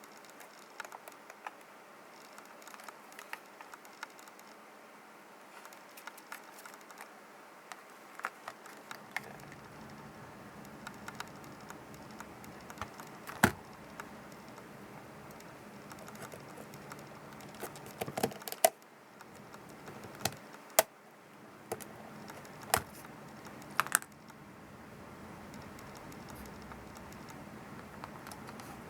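Small portable radio being handled during repair: irregular light clicks and taps of plastic parts, with a few sharper knocks.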